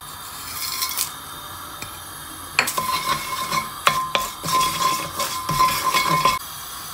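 Wooden spoon stirring and knocking against a non-stick pan while whole cumin seeds, bay leaves and black peppercorns are tempered in oil. The stirring starts about two and a half seconds in as a run of short knocks and scrapes, and stops shortly before the end.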